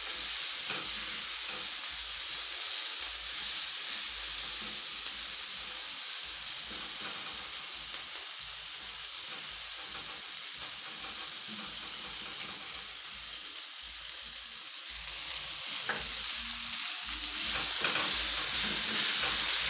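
Omena (small dried fish) sizzling steadily as they fry in a pan, nearly done and crisp. A few light knocks come near the end as the sizzle grows louder.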